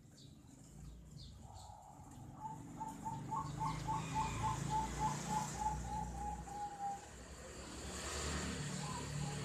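Zebra dove (perkutut) cooing: a fast run of short, even notes from about a second and a half in until about seven seconds, starting again near the end. A low rumble runs underneath, and a rushing noise swells around eight seconds.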